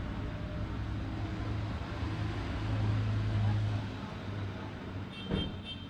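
A motor vehicle engine running with a low, steady rumble, which swells for about a second midway and then eases off. A short knock and faint broken high chirps come near the end.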